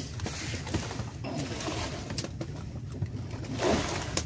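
Steady low drone of a fishing boat's motor running, with wind and water noise over it and a brief louder rush near the end.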